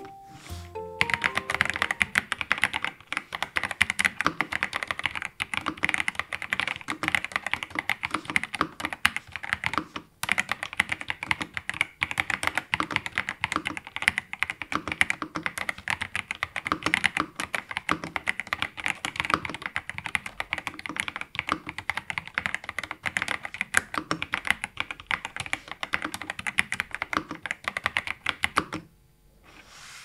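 Typing on an Epomaker RT65 mechanical keyboard with stock Epomaker Flamingo linear switches, a flex-cut PC plate, gasket mounting and ABS Cherry-profile keycaps: a dense, fast run of keystrokes. It starts about a second in, pauses briefly about a third of the way through, and stops about a second before the end.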